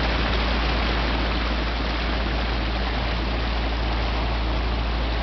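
Motor cruiser's propeller wash churning behind the stern while under way at a brisk pace: a steady rushing of water over the low, even hum of the boat's engine.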